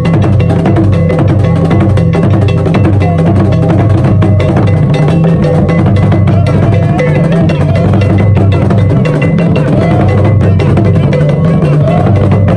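Ga obonu drum ensemble playing: tall carved wooden obonu drums and smaller barrel drums beaten with sticks in a loud, dense, unbroken rhythm.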